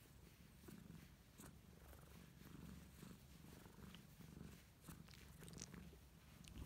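Tortoiseshell cat purring faintly as a hand strokes its head and chin, a sign of contentment. A few faint rustles of fur under the hand.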